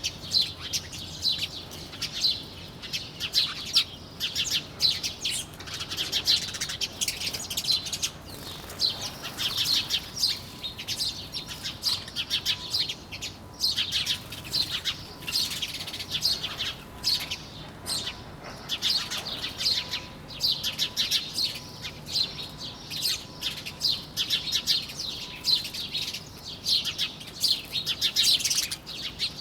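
A flock of small birds chirping continuously, many quick high-pitched chirps overlapping with no pauses.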